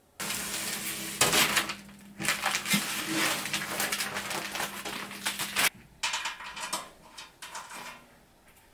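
Thin sheet-metal cover panel being handled and pushed into place on a metal machine cabinet: scraping and metallic rattling, with a sharp clank about a second in. A few lighter, separate clatters follow near the end.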